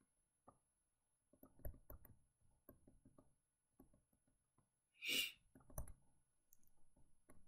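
Faint clicks and light taps of a stylus on a tablet as handwritten marks are drawn on a slide, with one brief louder scratchy noise about five seconds in.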